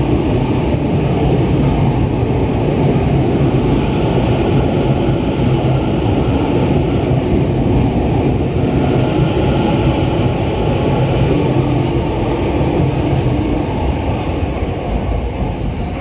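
Tokyo Metro 10000 series subway train pulling out of an underground station platform, its cars running past with steady wheel-on-rail and motor noise. The sound starts to fade near the end as the last car clears the platform.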